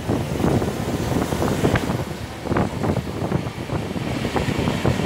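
Small Baltic Sea waves breaking and washing up on a sandy shore, a steady rushing broken by many small splashes, with wind buffeting the microphone.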